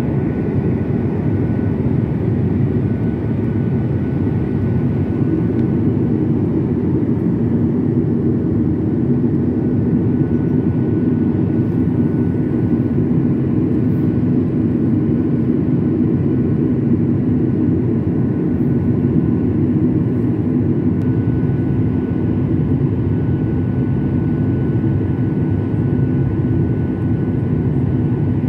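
Steady roar of a jet airliner's engines and airflow heard inside the cabin at a window seat over the wing, with a faint steady high whine above it.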